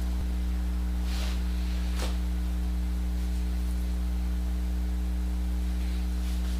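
Steady low electrical hum with faint hiss, with two faint soft noises about one and two seconds in.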